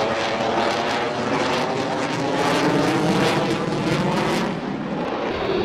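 Aircraft engine running, a loud, steady drone with a humming layer of several steady tones.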